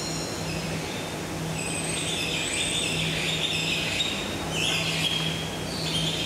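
High chirping bird calls in two short bouts, one about two seconds in and one near five seconds, over a steady low hum.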